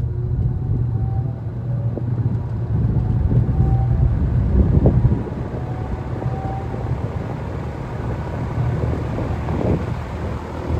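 Kmart K23 box fan with three metal blades starting on medium speed: a low motor hum with rushing air that builds over the first five seconds as the fan comes up to speed, then runs steadily.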